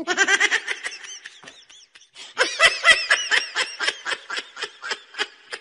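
Laughter in quick, high-pitched pulses, in two bouts: one fading away over the first two seconds, then a louder one starting about two and a half seconds in.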